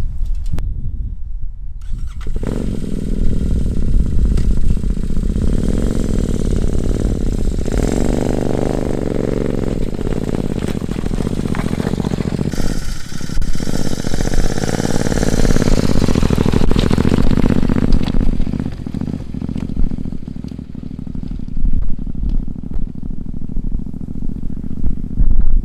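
Royal Enfield Interceptor 650's parallel-twin engine starting about two seconds in, then running and revving up and down, easing off near the end. Wind rumbles on the microphone throughout.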